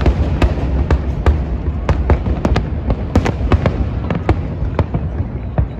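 Aerial fireworks bursting in quick, irregular succession: many sharp bangs, a few each second, over a continuous low rumble.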